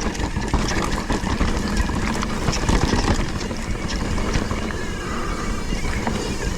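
Mountain bike riding over a rough, rocky trail: a steady rumble of tyres on rock and dirt with frequent knocks and rattles from the bike, picked up by a GoPro action camera.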